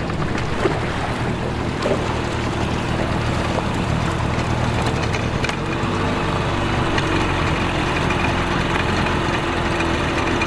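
Mercury outboard motor running at low speed with a steady hum. Its note changes a little about halfway through.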